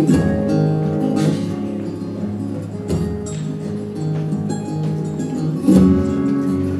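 Live folk band playing an instrumental intro: acoustic guitars strumming, with held notes under them and a few sharp strummed accents.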